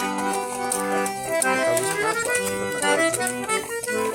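Accordion (sanfona) playing an instrumental forró melody with chords underneath.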